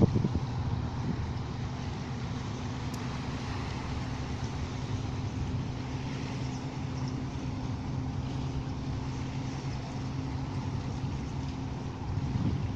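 Motorboat engine running steadily as the boat cruises across open water, heard as an even low drone.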